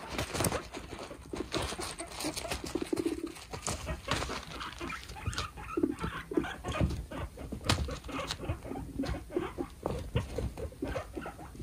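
Two guinea pigs in a dominance fight: rapid clicking of teeth chattering and scurrying feet, broken by short low rumbling notes.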